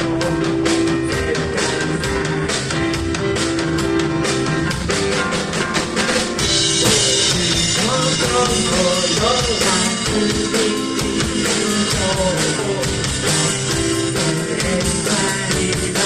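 A rock band playing live, led by a drum kit. About six and a half seconds in, crash and ride cymbals come in and keep washing over the rest of the playing.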